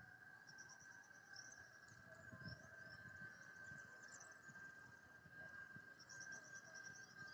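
Faint steady high-pitched hum, taken for an unexplained strange noise in the sky, with small birds chirping in short repeated trills over it.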